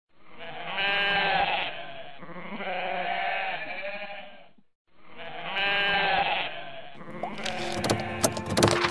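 Goat bleating: two long, wavering bleats with a short break between them, followed near the end by a run of sharp clicks.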